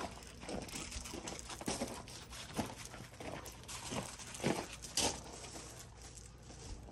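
Footsteps crunching on loose gravel at a walking pace, a short crunch about every half second to a second.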